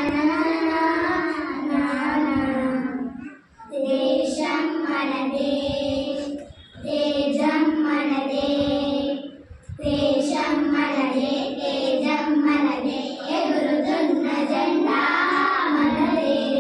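A small group of young girls singing together, unaccompanied, in long held phrases with short breaks between them.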